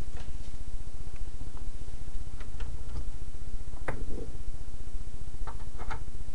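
Scattered clicks and light knocks of cable connectors being unplugged and plugged into a cable tester's fixture board, the sharpest about four seconds in, over a steady low hum.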